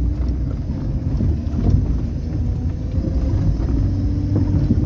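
Car cabin noise while driving over a freshly graded, rutted dirt road: a steady low engine and road rumble with small knocks from the tyres and suspension on the rough earth.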